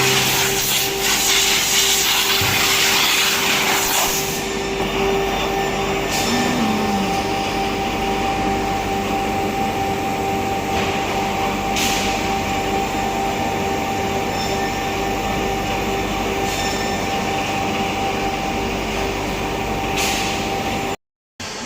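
CNC router running steadily: continuous machine noise with a steady whine, a few short clicks, and a brief dropout near the end.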